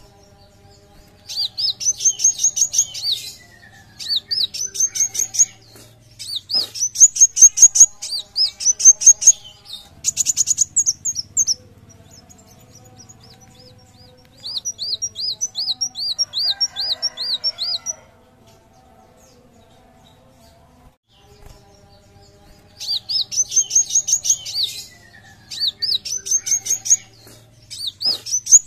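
Male kolibri wulung sunbird singing: repeated phrases of rapid, high, upswept chirps, each phrase one to three seconds long, with a pause of about five seconds in the second half.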